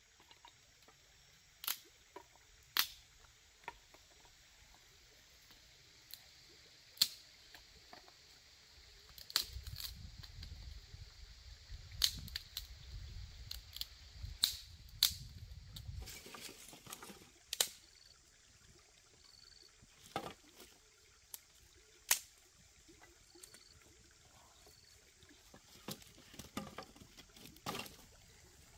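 Dry sticks and twigs being snapped by hand for firewood: sharp cracks at irregular intervals, roughly one every second or two, over a steady high background hiss.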